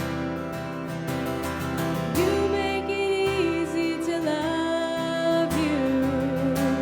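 Live worship band playing a song's instrumental intro: strummed acoustic guitar and a steady band bed, with a held melody line coming in about two seconds in and stepping down in pitch.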